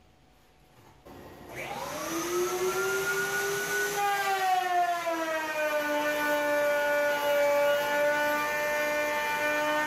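Router table and its dust-extraction vacuum switching on about a second in, the motor whine climbing in pitch as they spin up. Then the pitch sags and settles lower as a wooden board is pushed through the spinning bit, cutting a groove.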